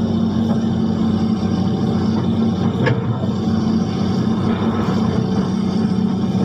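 Engine running steadily at a constant speed with an even hum, with a brief tick about three seconds in.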